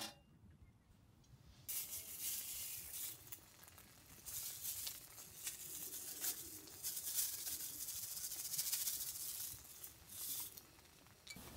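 Dry crinkling and rustling as dried seaweed (gim) is crushed in a plastic-gloved hand and crumbled over rice in a pan, in uneven scratchy rustles from about two seconds in until just before the end. A short sharp knock comes at the very start.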